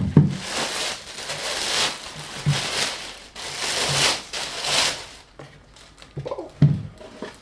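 Plastic packaging rustling and crinkling as it is handled and pulled away, in several irregular bursts over about five seconds, followed by a short, louder sound near the end.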